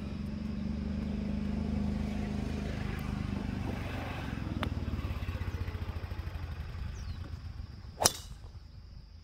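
A driver striking a teed golf ball: one sharp crack about eight seconds in, the loudest sound. Before it a low engine hum fades away, with a couple of fainter clicks about three and four and a half seconds in.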